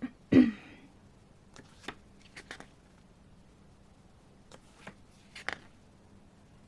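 Paper pages of a CD lyrics booklet being handled and turned, a few soft rustles and clicks, with one louder thump just after the start.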